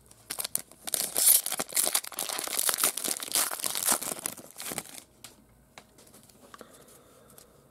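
Foil wrapper of a 2021 Panini Mosaic baseball card pack being torn open and crinkled by hand: a dense crackling rustle for about five seconds, then only faint handling sounds.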